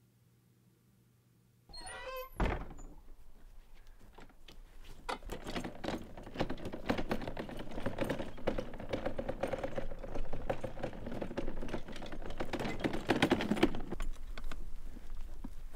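Black garden cart with inflatable tyres pulled across a lawn: the cart body rattles and knocks in a dense run of clicks over a low rolling rumble, building from about five seconds in. Before it there is near silence, then a brief high squeak and a single thump about two seconds in.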